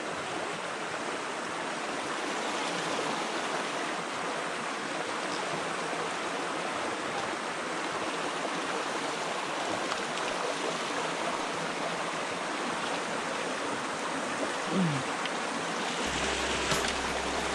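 Small rocky creek running over stones and riffles: a steady rush of flowing water.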